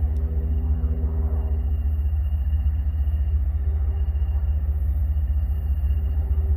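Steady low rumble of a freight train on the move, with the pitched hum of its diesel locomotives fading over the first two seconds.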